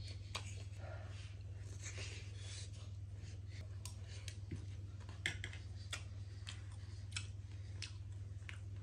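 Close-up eating sounds from a person: scattered short clicks and smacks of chewing over a steady low hum.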